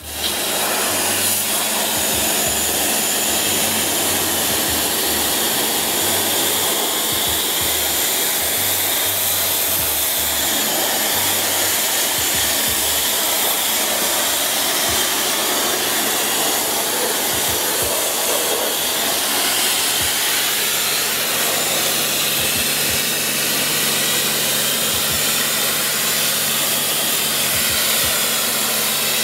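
Kranzle Therm CA11/130 hot pressure washer in steam mode, at low pressure and 140 degrees, jetting steam from the lance into a wheel arch: a loud, steady hiss over a steady low hum from the running machine.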